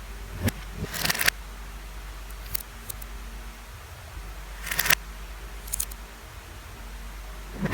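Lego plastic pieces clicking and rattling as they are handled: a few short, sharp clusters of clicks about a second to two seconds apart, with quiet handling noise between.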